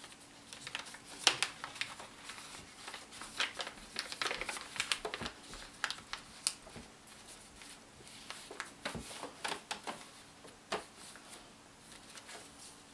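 A sheet of paper being folded by hand into a paper boat: irregular rustling and sharp crackles as the folds are creased and pressed flat against the table.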